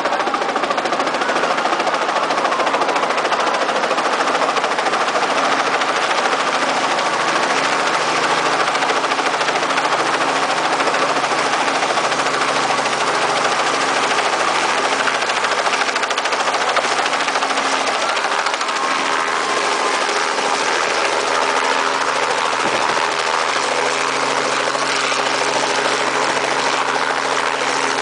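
Helicopter running, its engine and rotor making a loud, steady noise with a constant low hum.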